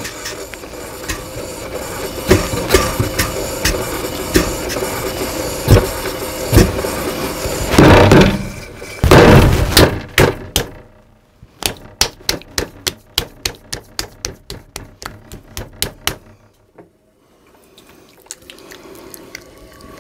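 A ball of clay being slapped and patted down onto a bat on a potter's wheel: scattered knocks and a couple of loud thumps as the bat and clay are set down, then a rapid string of sharp slaps, about four a second, for about five seconds in the middle.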